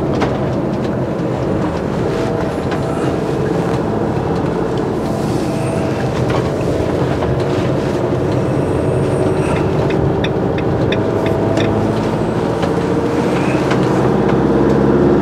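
Motorhome driving along a town road, heard from inside the cab: a steady engine drone and road noise that grows a little louder near the end, with a short run of light ticks about ten seconds in.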